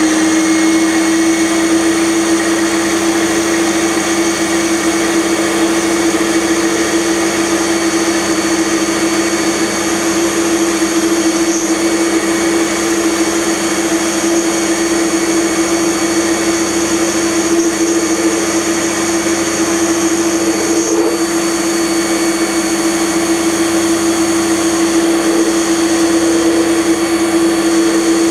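Small bench metal lathe running steadily under a cut, with a constant hum and high whine from the motor and drive, as the cutting tool turns down the diameter of a metal shaft to fit its bearings.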